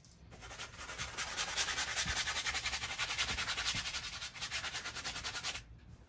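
A wide flat bristle brush scrubbing oil paint onto a stretched canvas in rapid back-and-forth strokes, a dry brushing that stops shortly before the end.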